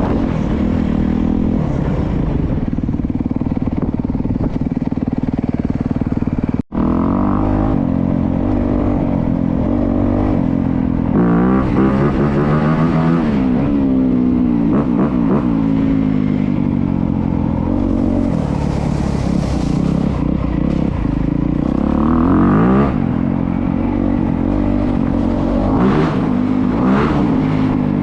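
A 2025 Honda CRF250R's single-cylinder four-stroke engine revving up and down while being ridden, its pitch rising and falling again and again through the gears. The sound cuts out for a split second about seven seconds in.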